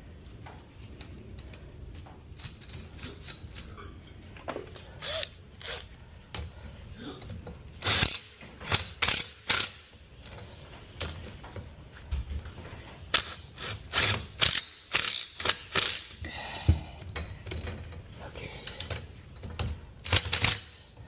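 Metal hand tools and hardware clicking and clanking as new garage door torsion springs are fitted: irregular sharp metallic clicks, some in quick runs, starting a few seconds in.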